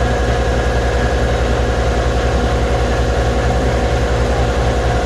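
A machine running steadily with a fast, even low throb, like an engine at idle.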